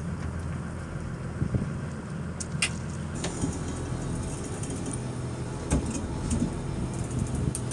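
Boat engine running steadily with a low hum, with a few sharp clicks and taps scattered through it.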